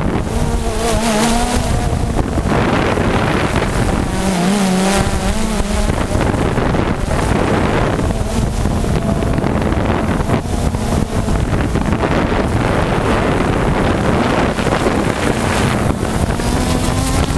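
Quadcopter drone's motors and propellers heard through its own onboard camera: a loud, steady rush of prop wash and wind on the microphone, with a wavering motor whine that comes up a few times as the rotors change speed.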